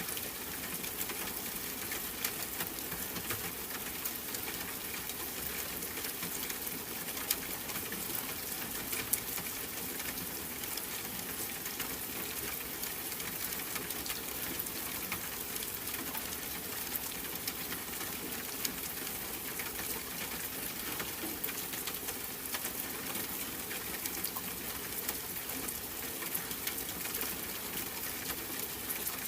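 Steady rain falling: an even hiss of water with scattered faint drop ticks.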